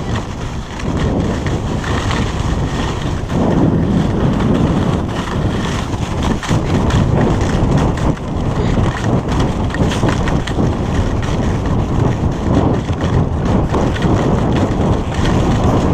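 Wind buffeting the microphone of a skier's body-worn camera during a fast downhill run, mixed with the skis hissing and scraping over the snow. The noise is loud and continuous and swells a second or so in.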